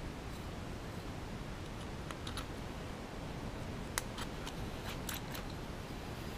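Hand deburring tool scraping the edges of slots milled in an aluminum motorcycle piston, giving scattered light clicks and scrapes, most of them in the second half, over a steady low background noise.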